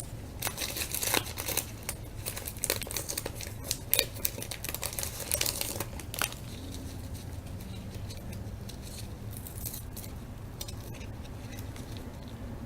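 Wrapper of a 1998 Bowman Chrome football card pack crinkling and tearing as it is opened by hand, a quick run of crackles for about six seconds before the handling goes quieter.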